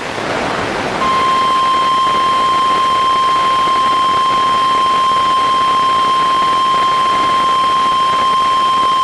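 NOAA Weather Radio's 1050 Hz warning alarm tone: a single steady, unbroken tone that starts about a second in over radio static hiss. It is the attention signal that comes before a spoken warning message.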